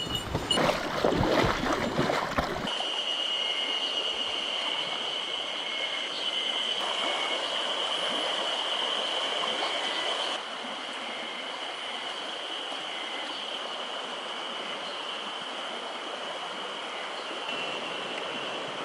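Mountain stream running, a steady rush of water, with a thin, steady high-pitched drone over it. The first two or three seconds are louder and rougher, full of splashy crackle, and the water sound drops somewhat about ten seconds in.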